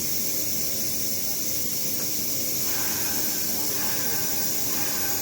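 Loud, steady industrial hiss and hum, with faint workers' voices in the background.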